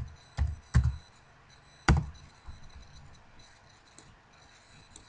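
Keys struck on a computer keyboard: a few quick taps near the start and one louder keystroke about two seconds in, followed by a few faint clicks.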